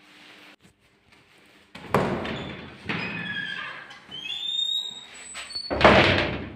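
A heavy door: a thud about two seconds in, its hinges squeaking in short rising and falling tones, then a loud bang as it shuts, about six seconds in.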